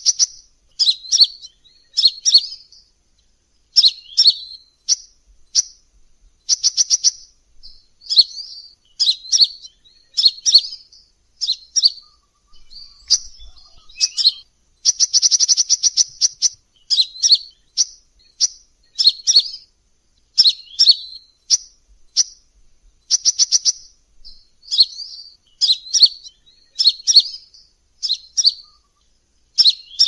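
Crimson sunbird song: short, sharp, high-pitched chips and twittering phrases repeated every second or so, broken by rapid even trills, the longest lasting about a second and a half midway.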